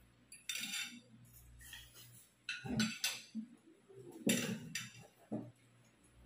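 Forks and spoons scraping and clinking against ceramic plates and bowls, in about five short bursts.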